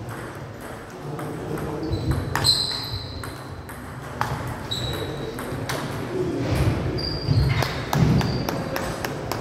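Table tennis rally: the ball clicking off the paddles and table, a hit about every half second to a second, with several short high squeaks from shoes on the hall floor.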